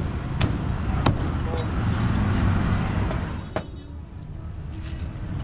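Cleaver chopping crispy roast pork on a thick wooden chopping block: two sharp chops about two-thirds of a second apart near the start, over a steady low background rumble.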